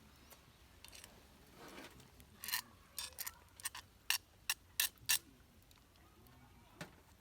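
A quick run of about nine sharp clicks of small hard objects over two to three seconds, then a single click near the end.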